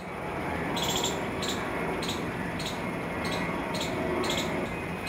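Outdoor street ambience: a steady low rumble and hiss, with a short, high chirp repeating about every half second.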